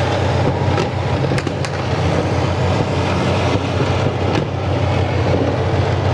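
Tank engine running with a steady, loud low rumble as tanks drive forward, with a few short sharp clicks over it.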